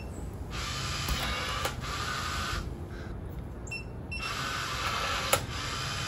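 ULTRALOQ U-Bolt Pro smart deadbolt operating: a short beep, then the lock's motor whirs for about two seconds driving the bolt. About a second later a second beep comes and the motor runs again for nearly two seconds.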